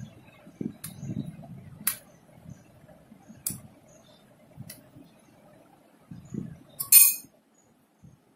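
Steel spoon clinking against a glass bowl as aloe vera gel is scraped off into it: four light single clinks a second or so apart, then a louder, rattling clink about seven seconds in.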